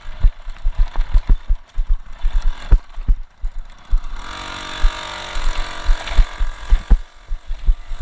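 Polini-tuned Piaggio Ciao moped's single-cylinder two-stroke engine running while it is ridden over rough field ground, with many heavy low thuds and knocks from the jolting. The engine note comes up louder and steadier about halfway through.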